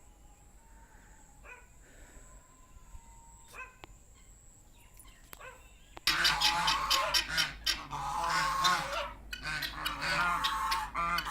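A flock of ducks calling noisily, many loud overlapping quacks that start abruptly about six seconds in. Before that there are only a few faint, scattered bird calls.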